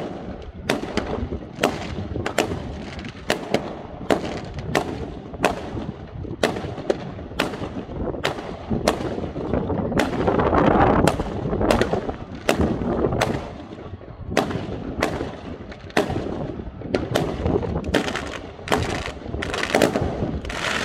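Aerial fireworks launching and bursting: a steady, evenly spaced run of sharp bangs, about one to two a second, with a louder, denser stretch about ten seconds in.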